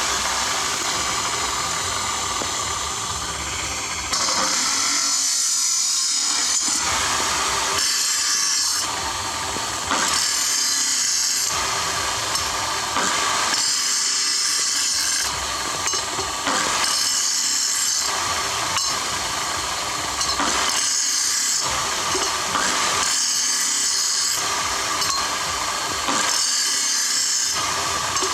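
Power tool working metal: a steady run for the first few seconds, then repeated passes about every two seconds, each with a bright hissing edge and a short dip between.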